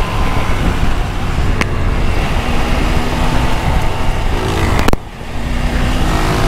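Motorcycle riding at road speed: heavy wind rush over the microphone with the Triumph Tiger 900's inline-three engine and the surrounding motorcycles running. A sharp click comes just before five seconds in, followed by a brief dip in the noise.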